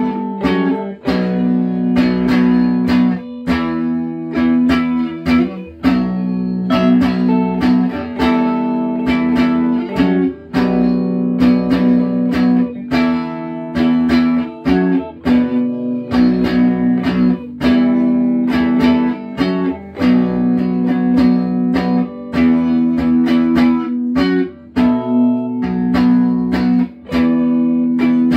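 Two clean electric guitars played together through small tube amps, a hollow-body Ibanez AF75T through a Fender Blues Jr. and a G&L ASAT through a Laney 10-watt tube amp. They pick repeated notes at a steady pulse over ringing low notes.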